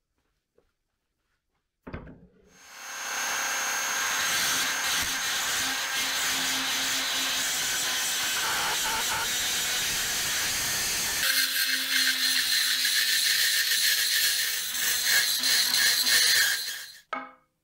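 Rotary multi-tool with a conical milling burr grinding away the head of a handle pin in a cleaver's steel bolster: a steady high-pitched whine and grinding that starts about two seconds in after a click, grows harsher about eleven seconds in, and stops just before the end.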